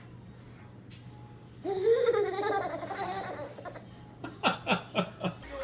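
Baby laughing: a long, high, wavering peal about two seconds in, then a run of about five short laughs near the end.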